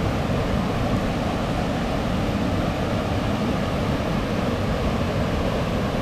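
Steady rushing of white water from a small river waterfall cascading over boulders.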